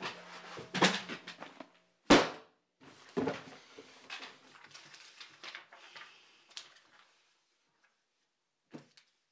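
Handling knocks and thuds: a run of clattering knocks, one loud sharp thump about two seconds in and another a second later, then rustling that fades out, with a single short knock near the end.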